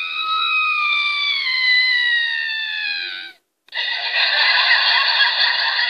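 A long, very high-pitched squeal gliding slowly down in pitch. After a short break, a harsher, noisier shriek is held to the end.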